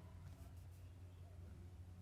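Near silence: a steady low hum with a few faint ticks and rustles.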